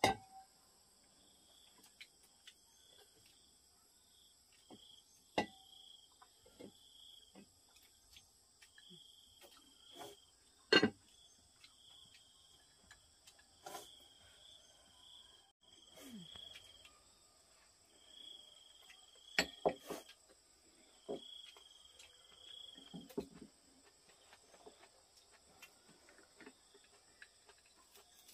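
Insects trilling steadily in a high chorus, with a short chirp repeating every second or two. Over it come scattered sharp clicks and knocks of tableware during a meal, the loudest about a third of the way through.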